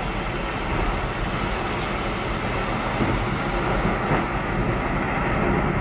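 Strong storm wind blowing, a steady, loud rushing rumble with heavy low buffeting on the microphone.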